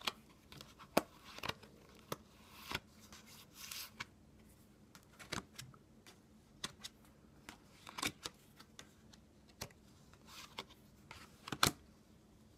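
Playing cards handled close to the microphone: irregular sharp clicks and short rustles as cards are flicked, tapped and slid, with the loudest snap near the end.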